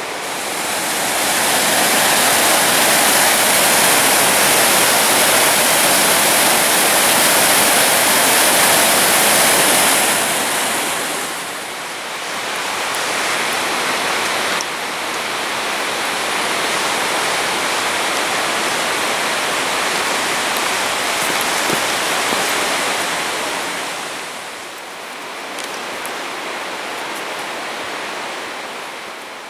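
Whitewater creek rushing, a steady hiss of water that drops a little quieter about eleven seconds in and again near the end.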